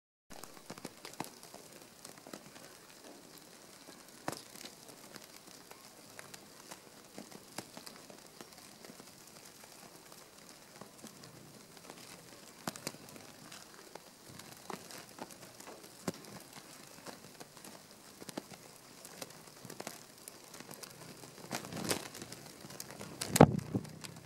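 Scattered faint clicks and crackles at irregular intervals, like light pattering, with a louder rustling bump about 23 seconds in.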